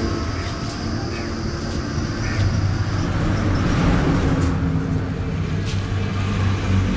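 A steady low motor hum, with a few faint clicks in the second half as a knife works a large fish on a wooden chopping block.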